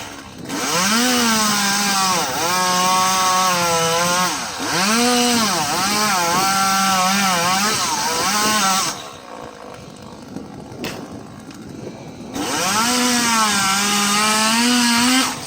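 Chainsaw running under load, its engine revving up and falling back again and again. The saw drops away for about three seconds past the middle, then revs up again.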